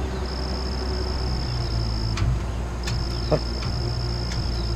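An insect calling with a steady high trill in long phrases of about two seconds, broken by short pauses, over a steady low hum.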